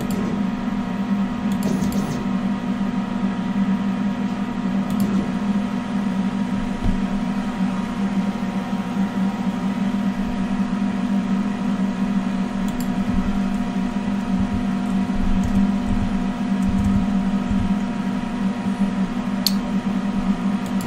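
K40 CO2 laser cutter switched on but not yet cutting: a steady mechanical hum with a low drone and several steady higher tones, and a few faint short clicks.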